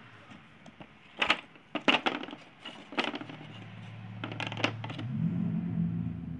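Hard plastic Play-Doh tools and pieces clicking and clattering against each other and the table: about six sharp knocks, with a low steady hum coming in toward the end.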